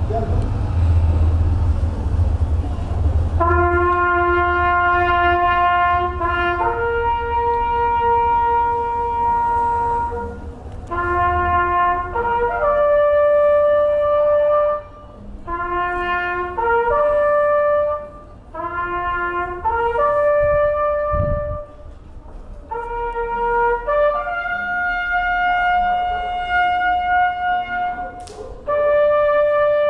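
A single brass instrument plays a slow melody of long held notes, one note at a time. It comes in about three and a half seconds in and runs in short phrases with brief gaps between them, over a low rumble.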